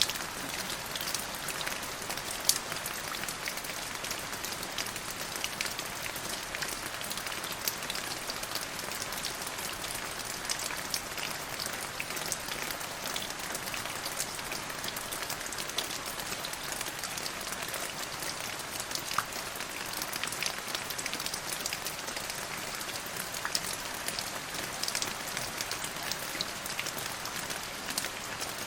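Steady rain falling on a surface: an even hiss dotted with sharp ticks of individual drops, one louder tick about two and a half seconds in.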